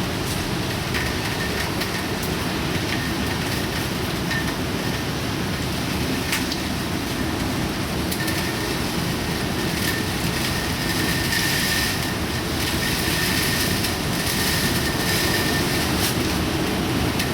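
Typhoon storm noise: steady heavy rain and wind, with a few brief sharp knocks and a faint high whistle through the second half.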